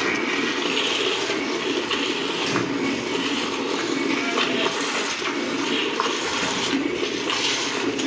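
Hand milking a cow: streams of milk squirting from the teats into a bucket already holding milk, a steady splashing of liquid.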